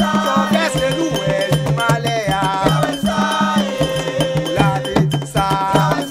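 Music: a song with a pulsing, repeating bass line and steady percussion under a melodic lead line.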